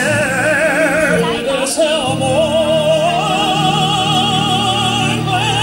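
Background music: a ballad in which a singer holds long notes with strong vibrato over a sustained backing, and a fuller low accompaniment comes in about two seconds in.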